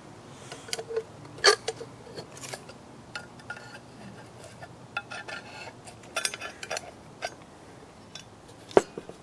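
A thin screwdriver prying and scraping at the sealant-stuck seam of a finned cast-metal housing, making scattered metal clicks and scrapes. Sharper clinks come about a second and a half in and near the end.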